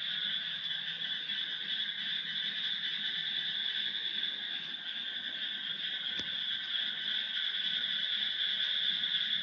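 Steady high-pitched chorus of calling night animals, such as crickets or frogs, with a low hum underneath and one faint click about six seconds in.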